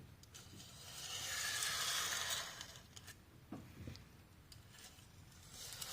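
A prepared piano played to imitate a car's tires passing on the street: a hiss that swells up about a second in and dies away again, like a car going by. A faint knock follows a little later.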